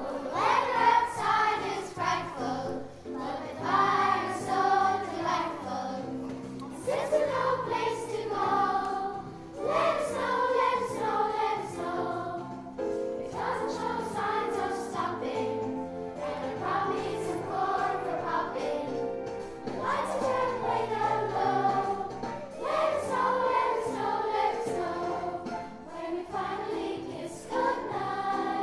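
Children's school choir singing together in phrases of a second or two, over steady low accompaniment notes.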